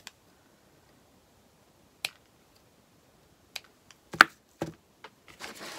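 A few separate sharp clicks and taps of small objects being handled on a work table, the loudest a little after four seconds in, then a brief rustle near the end.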